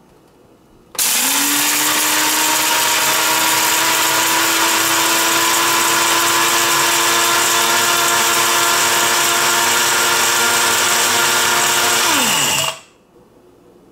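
Mr. Coffee Multi-Grind blade grinder starting about a second in and running steadily as its blades chop a batch of coffee beans. Near the end the motor's pitch falls and it winds down, stopping on its own at the end of its automatic cycle.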